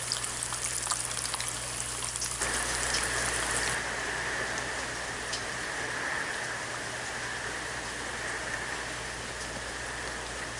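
Eggs sizzling in a cast-iron skillet, then about two seconds in a change to a steady rush of storm rain in the trees, with a faint steady high tone under it.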